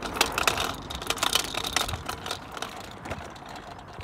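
Kick scooter's small wheels rattling over block paving: a dense clatter of clicks, loudest in the first two seconds, then lighter.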